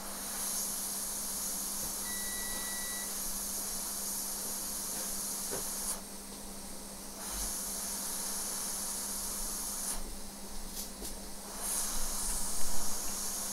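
Hot air rework station blowing with a steady hiss while soldering a chip on a phone logic board, cutting out twice for about a second. A single electronic beep lasts about a second, starting about two seconds in. A few louder clicks come near the end.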